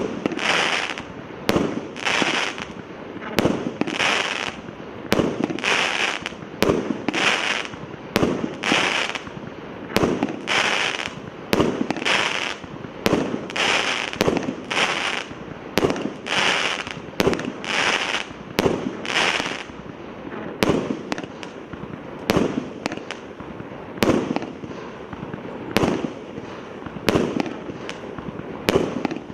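A multi-shot consumer firework cake (a 300-shot salute battery in 0.8, 1 and 1.2 inch calibres) firing tube after tube. It gives a sharp shot roughly once a second, and each shot is followed by a short hissing crackle. The crackles become weaker in the last third.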